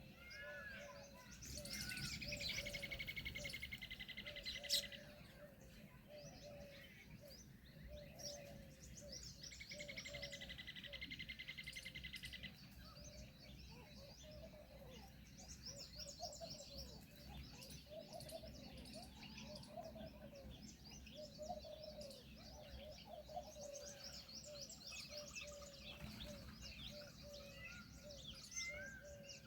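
Several wild birds chirping and calling together, with short notes repeating throughout. Two long, rapidly pulsed buzzing trills stand out above the chorus, one near the start and one about ten seconds in.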